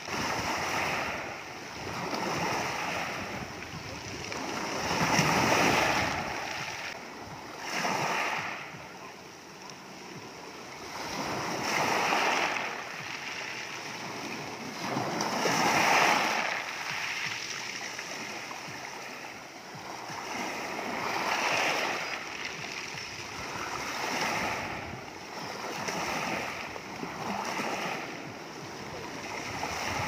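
Small waves breaking and washing up over a shingle beach of wet, rounded pebbles. The surf swells and ebbs in surges every few seconds, loudest about five and sixteen seconds in.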